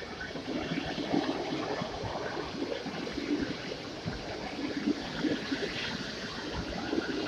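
PKP Intercity passenger coaches rolling past on the track as the train pulls out: a steady rumble of wheels on rail with irregular clatter.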